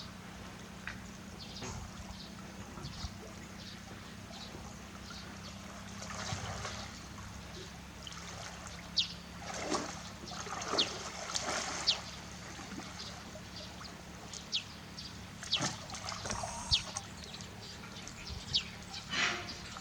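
Water splashing and trickling in a hippo pool, in several short bouts, over a steady low hum, with many brief sharp high-pitched sounds scattered through.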